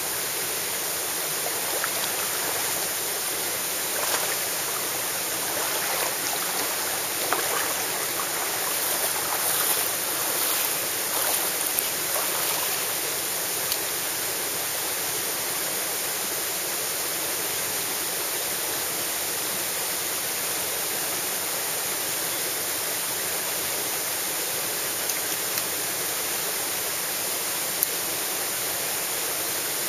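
Mountain stream rushing steadily over rocks, with a scattering of faint light clicks in the first half and a couple more near the end.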